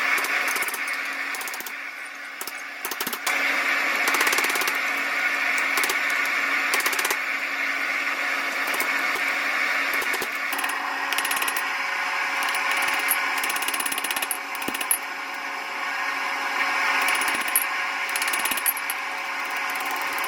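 Propane gas forge burner running with a steady rushing noise, with repeated sharp metallic clinks and knocks of tools on steel throughout.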